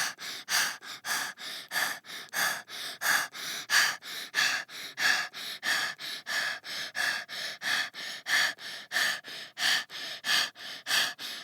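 Rapid, rhythmic panting dubbed in as a sound effect: short breaths at about three a second, alternating louder and softer, keeping an even pace throughout.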